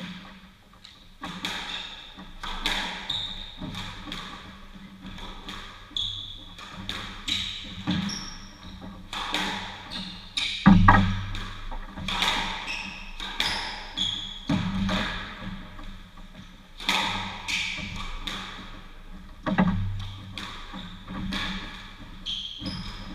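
A squash rally: the rubber ball cracks off the rackets and the walls in a quick, irregular run of hits starting about a second in, the hardest one near the middle. Shoes squeak in short bursts on the wooden court floor between the shots.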